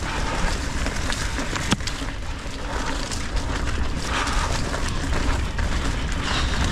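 Mountain bike riding along a dirt trail: wind rumbling on the microphone over the rush of tyres on dirt, with one sharp knock from the bike a little under two seconds in.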